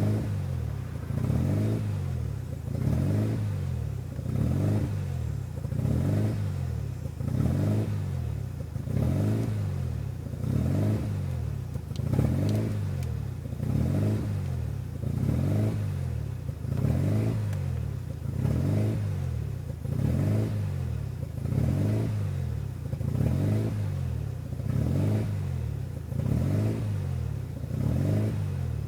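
1993 Mazda RX-7's twin-rotor rotary engine idling roughly, its note rising and falling about once a second. The uneven idle came on after a Power FC aftermarket engine computer was installed.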